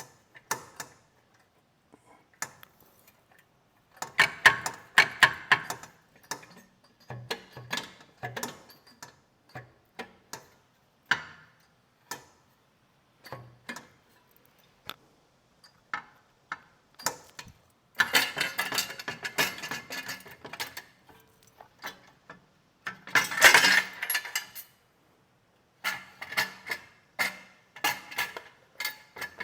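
Hand ratchet wrench clicking in repeated bursts of rapid ticks, with short pauses between, as motorcycle exhaust fasteners are worked loose.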